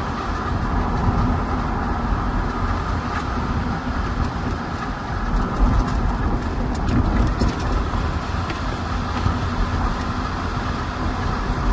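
A vehicle driving on the road: steady rumble of engine, tyre and wind noise, heaviest in the low end.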